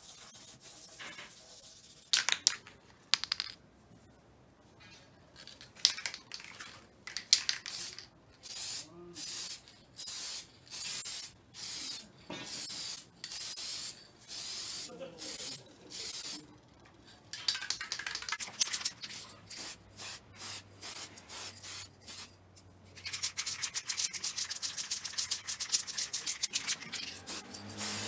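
A hand rubbing over the painted steel fuel tank of a Kawasaki 250TR in regular scratchy strokes, about one and a half a second. In the last part the rubbing turns faster and denser.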